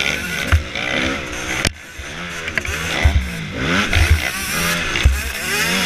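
Motocross bike engine heard from on board, revving up and dropping back over and over as the throttle is worked and the gears change. A noisy rush runs under it, with several short low thumps over the rough track.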